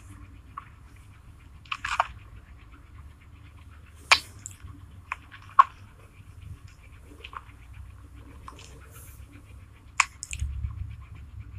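Mouth noises: a handful of sharp lip smacks and clicks spread through the stretch, the middle two loudest, as the lips are pursed and twisted in a nervous tic. A low rumble near the end.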